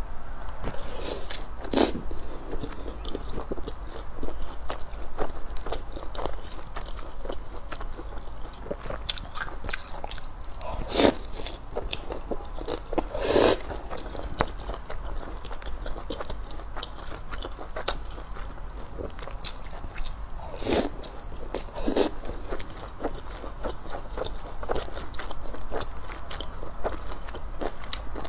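Close-miked eating of black stinky tofu: steady chewing and small mouth clicks, broken by about five loud crisp crunching bites.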